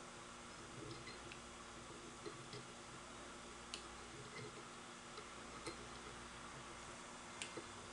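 Faint, irregular small clicks and handling noises from fly tying at a vise, as oval tinsel is wound on the hook to form ribs, over a low steady hum.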